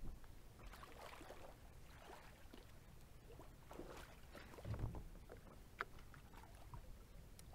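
Faint water swishing and splashing against a kayak hull as it moves through the water, with a low rumble underneath and a sharp click near the end.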